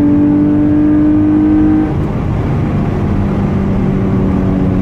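Car engine pulling hard under acceleration, its note rising slightly, then dropping suddenly about two seconds in and settling into a steady lower drone.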